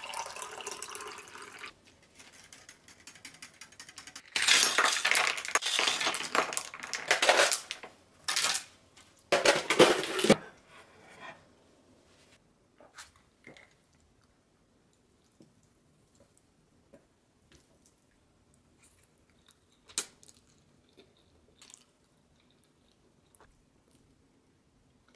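Water poured from a plastic pitcher into a double-walled glass for a couple of seconds. A few seconds later comes a longer, louder stretch of splashing and clatter in the glass, broken off twice and ending about ten seconds in. After that there are only sparse light clicks and taps of dishes on a counter, with one sharp tap about twenty seconds in.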